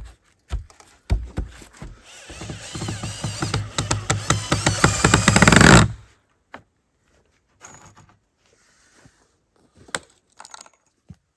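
A hand tool working on the wooden plank door: a dense run of rapid strokes builds up louder for about four seconds and stops abruptly, followed by a few scattered knocks of wood.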